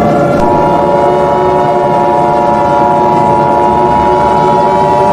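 Emergency Alert System attention signal: a loud, steady two-tone alarm chord that comes in about half a second in and holds, over a noisy droning background.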